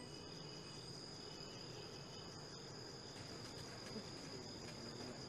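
Crickets chirping in a steady, unbroken high trill, faint, as night-time background.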